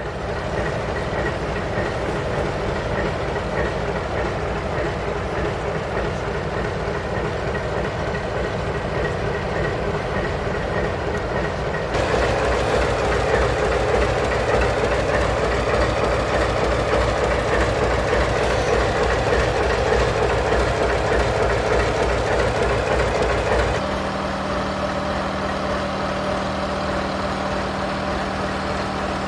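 Diesel train sound in three spliced takes that change abruptly about twelve and twenty-four seconds in: an MLW RS-3 locomotive's diesel engine running, and in the last part a steady hum as the train's cars roll past.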